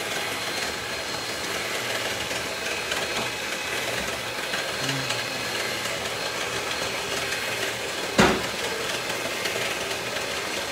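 Steady mechanical whirring hum with no speech, broken by one sharp knock about eight seconds in.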